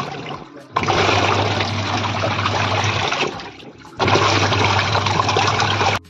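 Pulsator washing machine running a wash: water churning and sloshing in the tub over a steady motor hum. The sound drops away briefly twice, shortly after the start and a little before the four-second mark, then comes straight back.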